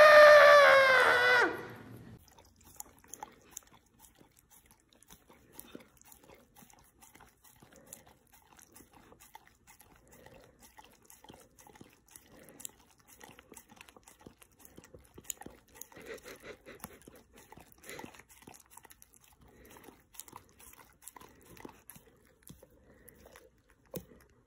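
A long wailing cry, falling slightly in pitch, dies away about a second and a half in. Then faint wet licking and smacking as a dog and a cat lick at a treat.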